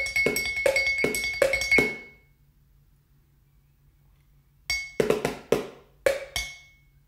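A fast rhythm tapped with sticks on kitchen containers (a glass tumbler, a glass jar and a plastic food box), with a clear glassy ring sustaining under the hits. The rhythm stops about two seconds in; after a pause, a short run of about six hits follows near the end.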